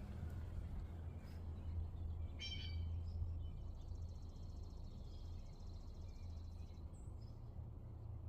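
Birds calling: one short harsh call about two and a half seconds in, then a thin, high trill lasting about three seconds, over a steady low rumble.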